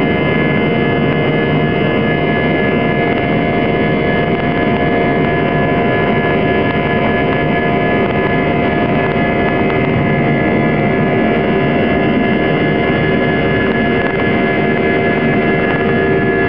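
Airbus A320's IAE V2500 turbofan engines at takeoff thrust, heard inside the cabin just ahead of the right engine, during the takeoff roll. A steady, loud rush of noise with several steady whining tones layered over it.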